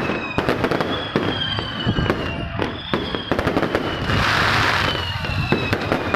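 Fireworks going off in rapid succession: sharp bangs and crackles, with high, slowly falling whistling tones and a hissing rush about four seconds in.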